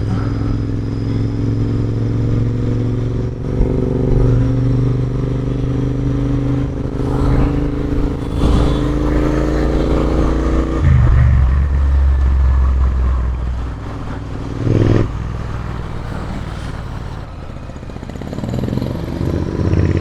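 Royal Enfield Interceptor 650's parallel-twin engine running on the move, its note climbing slowly and then dropping sharply about halfway through as it comes off the throttle, with a brief louder burst later.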